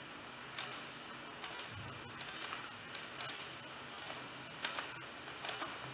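Faint, irregular clicks of a computer mouse and keyboard, about a dozen short clicks scattered over several seconds, over a low hiss.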